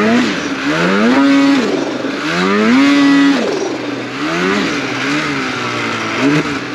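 Turbocharged Ski-Doo snowmobile engine revved in a series of about five throttle blips, each rising in pitch and dropping back, the one in the middle held longest at about a second. The rider is using short bursts of throttle to swing the sled's front downhill and free it from a washed-out, nose-high stall on a slope.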